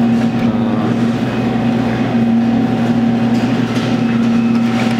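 Claw machine running with a steady electric hum, its gantry motors driving the claw during a play.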